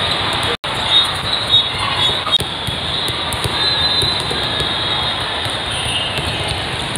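Steady din of a big hall full of volleyball courts, crowd chatter and play on many courts blending together, with a few sharp knocks in the first couple of seconds. The sound drops out for an instant about half a second in.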